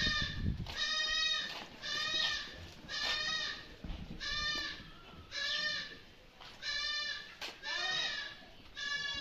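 A goat bleating over and over, about eight wavering calls of roughly half a second each, about one a second.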